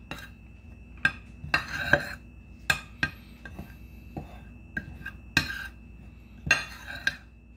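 Metal spoon stirring seasoned flour in a ceramic baking dish, with irregular clinks and knocks as the spoon strikes the dish between softer scrapes through the flour.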